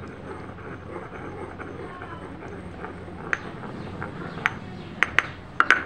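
Green stone pestle grinding a wet paste in a stone mortar: a steady wet scraping and grinding, then about six sharp stone-on-stone clicks over the second half as the pestle knocks the mortar, the last ones loudest.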